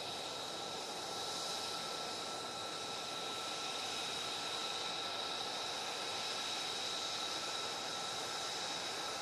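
F-35 Lightning II jet engine idling on the ground: a steady rush with an even, high-pitched whine over it.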